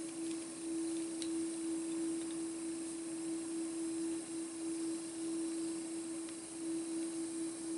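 A steady low hum at one pitch, with a few faint light clicks.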